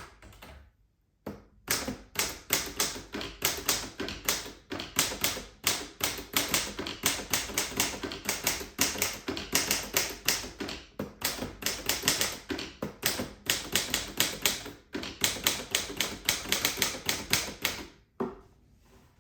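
A 1946 Smith Corona Clipper portable manual typewriter being typed on: a quick, uneven run of type bars striking the platen, several keystrokes a second, with short pauses. The typing starts about a second in and stops shortly before the end.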